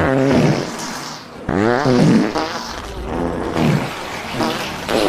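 A rapid run of fart and burp noises, about seven short rasping sounds one after another, each sliding in pitch.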